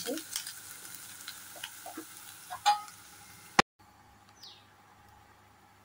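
Mushroom pieces sizzling in hot oil in a kadai, with stirring clicks and a sharp knock against the pan. About three and a half seconds in the frying cuts off to quiet room tone, with one faint chirp.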